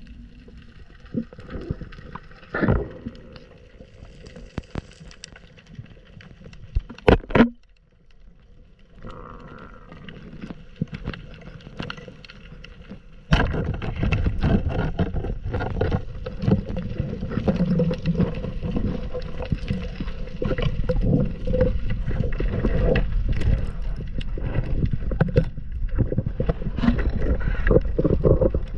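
Underwater sound through a diving camera's housing: scattered clicks and crackles, and a sharp double crack about seven seconds in. From about thirteen seconds a loud, dense rumble of churning water and handling noise sets in suddenly and runs on.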